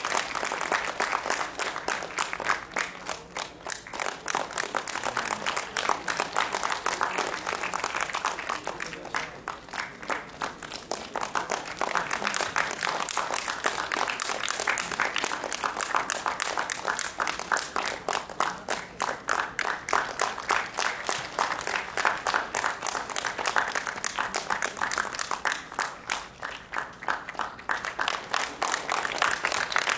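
Audience applauding: many hands clapping in a dense, steady patter that eases off briefly twice.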